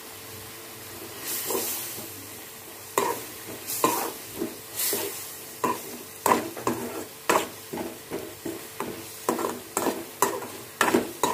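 Metal spoon stirring and scraping tomato and green chilli chutney around a metal pan as it fries in oil with a steady sizzle. The scrapes come about one or two a second, starting about a second in. The chutney is being fried until its raw smell is gone and the oil separates.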